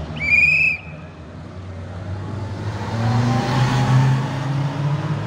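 A short, trilling whistle blast near the start, then a car driving past on the street, its engine and tyre noise swelling to a peak about four seconds in and fading away.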